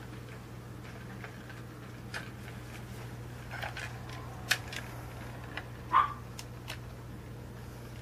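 Scattered small plastic clicks and knocks of a toy remote-control car and its snap-in figure being handled, two of them louder past the middle, over a steady low hum.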